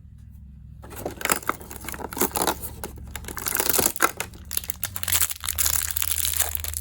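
Plastic toy packaging being torn open and crinkled by hand, a busy crackling that starts about a second in and keeps going.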